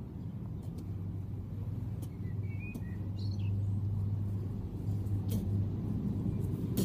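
Steady low motor hum, like traffic or an engine running, growing slightly louder, with a few faint ticks.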